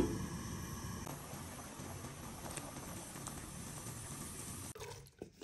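A pot of water at a rolling boil: a steady bubbling hiss. Near the end it gives way to quieter scattered pops and ticks.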